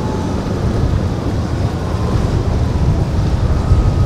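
Outboard motor of a small center-console boat running at speed through choppy water, with a faint thin whine that drifts slightly in pitch, under heavy wind rumble on the microphone and the wash of water.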